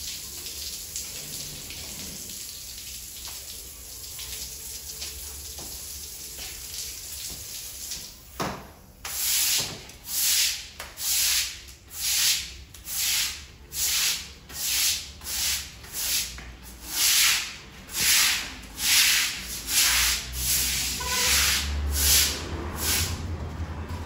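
Water from a garden hose running steadily onto a wet tiled floor. About eight seconds in, a long-handled scrub brush starts scrubbing the wet tiles in regular back-and-forth strokes, a little over one stroke a second.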